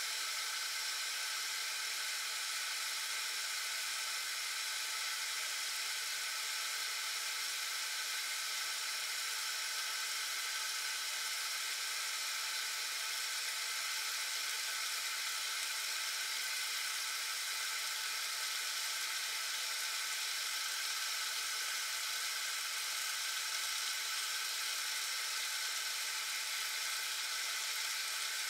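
Homemade aluminium-can alcohol stove burning, its jets of flame giving a steady, high-pitched hiss.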